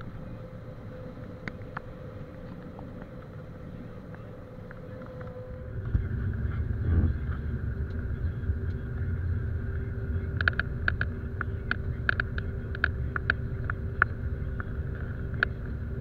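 Steady in-cab hum of a combine harvester cutting soybeans. About six seconds in it changes to a louder, deeper rumble as the combine's unloading auger pours soybeans, with scattered sharp ticks in the second half.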